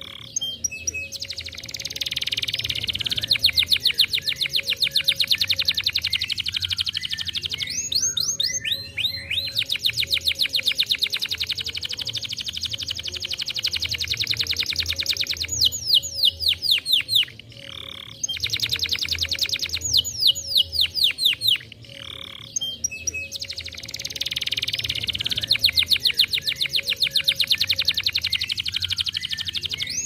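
Domestic canary singing long rolling trills of very fast repeated notes, phrase after phrase, with short breaks about six, seventeen and twenty-two seconds in.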